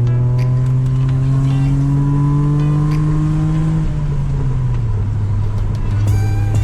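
BMW E36 320i's 2.0-litre straight-six, run without catalytic converters, pulling with its exhaust note climbing steadily in pitch, then falling about four seconds in and holding at a lower, steady pitch.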